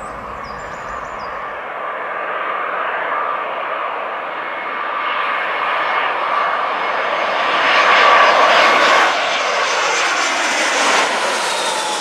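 Airbus A319 jet airliner on final approach, its engines giving a rushing noise with a steady whine that grows louder as it closes in, loudest about two-thirds of the way through.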